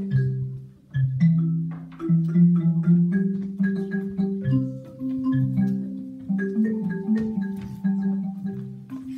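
Instrumental music: a melody of short, separate pitched notes over a low bass line.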